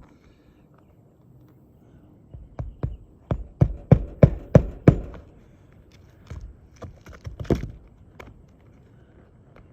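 A hammer driving roofing nails into an asphalt shingle: a run of about ten quick blows, about three a second, then a few lighter, scattered strikes.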